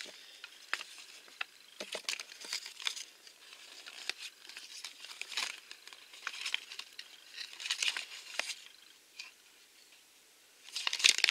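Folded paper collector's checklist being unfolded and handled, crinkling in scattered rustles and small clicks, with a louder burst of crinkling near the end.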